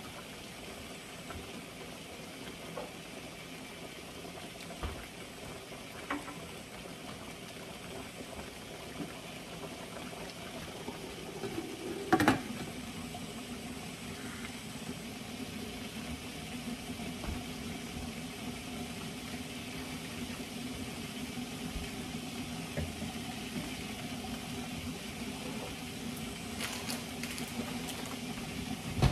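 Beef stew bubbling at a steady boil in a large pan. About twelve seconds in comes a single loud clatter as the glass lid is set on the pan.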